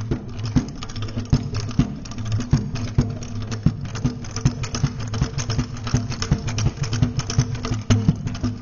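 Traditional sing-sing performance: drumbeats about once or twice a second under low group chanting, with a busy rattling clatter throughout.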